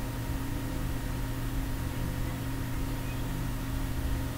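Room tone: a steady low hum with an even hiss underneath, no distinct events.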